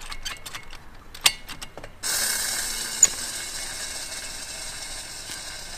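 LPG fill nozzle clicking as it is fitted onto the fill valve of a small refillable propane cylinder, then, about two seconds in, a sudden steady hiss of gas flowing through the nozzle into the cylinder, with one sharp click a second later.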